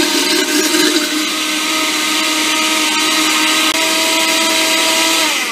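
Countertop blender motor running at speed, whipping a cream and olive-oil salad dressing; its whine holds steady, then starts to fall in pitch near the end as the motor is switched off and winds down.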